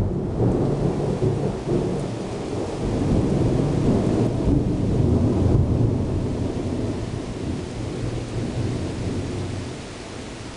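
A long roll of thunder rumbling over steady rain, swelling in the middle and fading away near the end.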